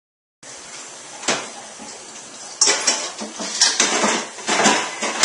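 Dishes, pots and cutlery clattering at a kitchen sink during washing-up, over the steady hiss of a running tap. A single clatter comes about a second in, then a run of repeated clanks from about halfway.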